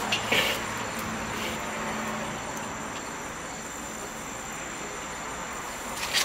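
Chicken legs sizzling on the hot grate of a charcoal-fired Weber kettle grill as they are laid down, a steady hiss. A few sharp clicks as pieces are set on the grate come near the start and again near the end, over a thin steady high tone.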